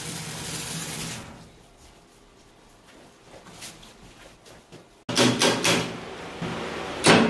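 A brief hiss as the pine workpiece spins on the wood lathe with a paper towel held to it. Then metal clanks and knocks as a drill chuck on a tapered arbor is handled and fitted into the lathe's tailstock, with one sharp knock near the end.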